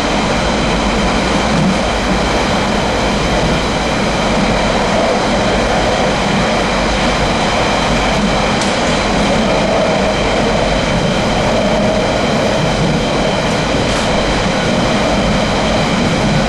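London Underground 1992 stock train running at a steady speed: a loud, even rumble of wheels on track with several steady high tones over it. Two faint clicks come partway through.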